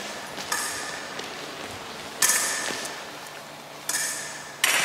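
Fencing blades clashing, metal on metal: four sharp strikes, each ringing out for about a second.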